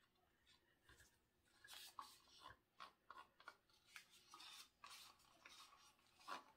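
Wooden craft stick scraping and tapping inside a plastic split cup as acrylic paint is scooped and wiped into one chamber: a string of faint, short scrapes and light ticks, starting about two seconds in.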